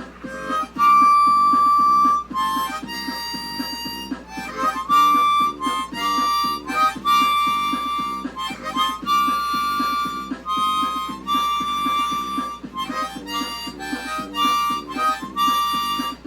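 Instrumental music: a lead instrument plays a melody of held, reedy notes over a steady repeating backing pulse of about three beats a second.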